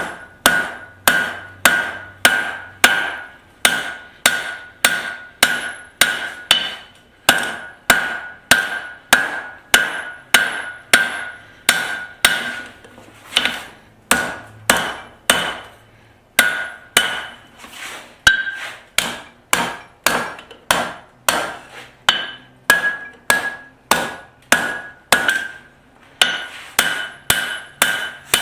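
Hand hammer striking hot steel on an anvil, a steady run of blows a little under two a second, each with a short metallic ring: the reins of a pair of blacksmith's tongs being drawn down.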